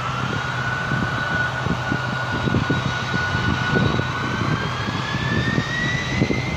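Boeing 767-300ER jet engines at a distance, a whine that climbs in pitch, holds for a few seconds and climbs again as the engines spool up for the takeoff roll. Under it runs an uneven low rumble.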